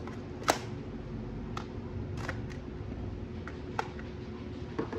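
Plastic clicks and knocks from handling a toy gel blaster: one sharp click about half a second in, then a few lighter, scattered clicks.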